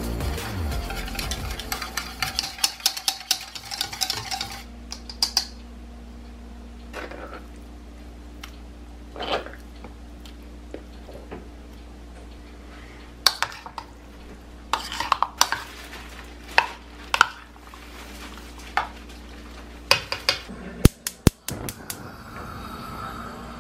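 A wire whisk beating egg white and cornstarch in a bowl, a fast run of light clinks for the first four seconds or so; then scattered clinks and knocks of a utensil against the bowl as sliced chicken is mixed. Near the end, a quick series of gas stove igniter clicks, then the lit burner's steady hiss.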